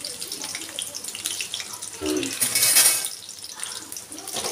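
Ivy gourds and curry leaves sizzling and crackling in hot oil in an aluminium kadai, with a loud burst of spattering about two and a half seconds in. A spatula starts stirring them near the end.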